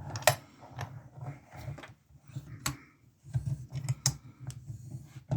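Handling of a padlock and lock-picking tools: sharp metal clicks, four of them louder, with small ticks and rubbing between them.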